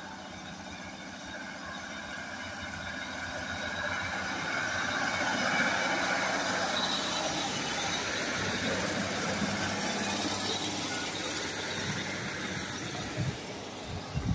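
Two-car Class 156 Super Sprinter diesel multiple unit pulling away and running close past, its underfloor Cummins diesel engines and wheels on the rails growing louder as it draws level and then fading as it moves off. A few low buffeting rumbles come near the end.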